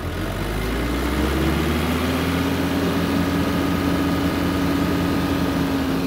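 Compact John Deere diesel tractor engine sped up on the hand throttle with the PTO-driven rear equipment engaged. It rises in pitch over the first couple of seconds, holds steady with a faint whine above it, then starts to drop near the end.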